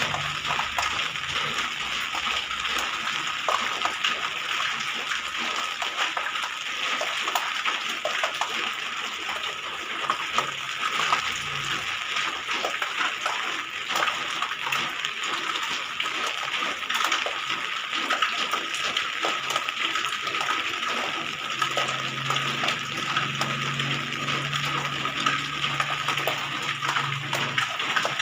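Steady rain falling on a house terrace and roof: a continuous rushing hiss full of close drips and splashes, with a thin steady high tone running through it. A low hum joins in about three quarters of the way through.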